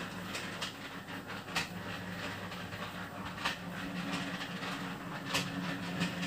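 Concrete mixer running, its drum turning with a steady hum and a sharp knock about every two seconds as it tumbles a batch of ground rabbit-feed ingredients.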